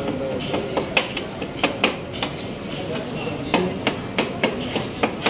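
Two metal spatulas chopping chocolate into an ice cream base on a steel cold plate, striking the metal in sharp, irregular clacks about two to three times a second.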